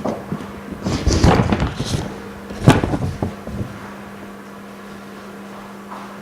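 Knocks and clatter of objects being handled on a repair bench during the first three and a half seconds, the loudest knock a little before the three-second mark, over a steady low electrical hum.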